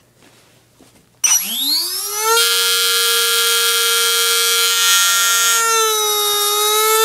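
Brushless outrunner motor with an out-of-balance bell, run on a 3-cell battery, spinning up about a second in to a steady high whine with many overtones. Its speed sags slightly once near the end. The unbalanced bell makes the motor mount vibrate.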